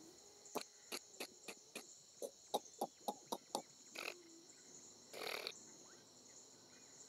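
Faint outdoor ambience: a steady high-pitched insect drone, with a run of sharp clicks about three or four a second over the first few seconds and a brief rustle about five seconds in.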